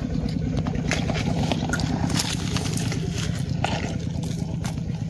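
A steady low hum runs throughout, with short crackles and clicks of dry leaves and soil being poked and handled by metal tongs.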